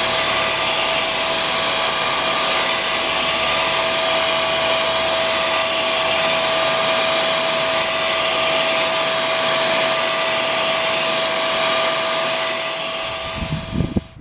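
Homemade surface grinder running: a steady whirring hiss with one constant whine, dropping off shortly before the end.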